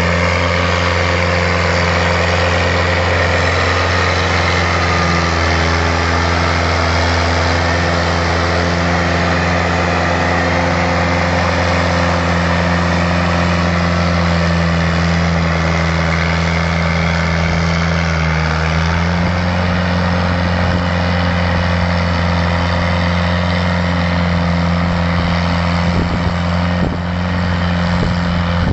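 Fiat 315 tractor's diesel engine running steadily under load as it pulls a subsoiler deep through the soil, its pitch wavering slightly about two-thirds through.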